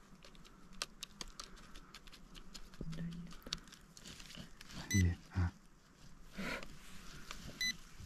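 Handheld metal-detecting pinpointer scraping and clicking through loose, gritty soil, then giving two short, high electronic beeps about two and a half seconds apart as it finds metal. Two dull low thumps, the loudest sounds, come just around the first beep.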